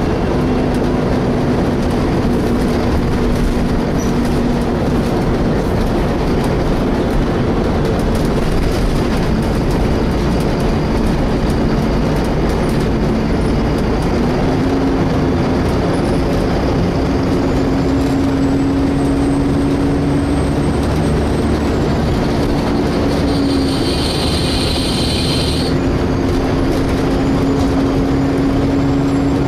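Volvo B7TL double-decker bus heard from inside while running: steady rumble with a droning whine from the engine and cooling fan that rises slightly in pitch about halfway. A brief high squeal lasts about two seconds near the end.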